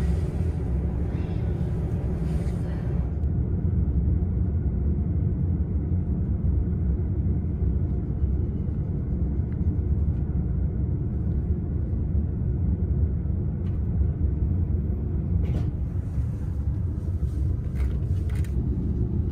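Steady low rumble of a double-decker commuter train running along the line, heard from inside the passenger car. A few short clicks and knocks come near the end.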